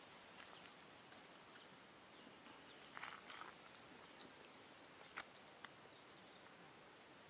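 Near silence: faint outdoor background hiss with a few brief, high chirps and clicks, the loudest cluster about three seconds in.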